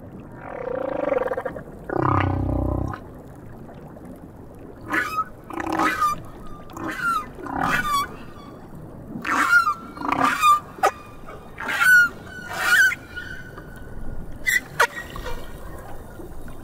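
South Pacific humpback whale song heard underwater: two long moans in the first three seconds, the second deeper, then a run of short higher calls about one a second from about five seconds in, thinning out near the end.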